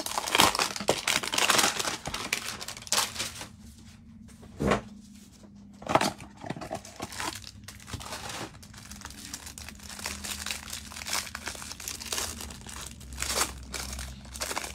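Plastic wrapping of a trading-card hanger box being torn open and crinkled, with a dense burst of crinkling at the start and then scattered sharp rips and rustles as the pack is handled.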